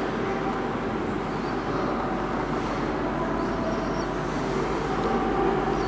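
Steady hum and hiss of the building's air conditioning, with no sudden sounds.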